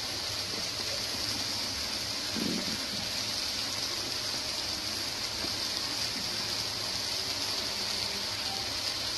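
Chopped tomatoes, onions and garlic frying in oil in a pan, a steady sizzle.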